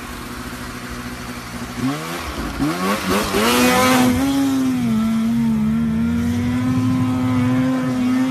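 Snowmobile engine revving hard, its pitch rising and dipping about two seconds in, then held at a steady high pitch at wide throttle as the sled skims across open water. A burst of water spray hisses under it around three to four seconds in.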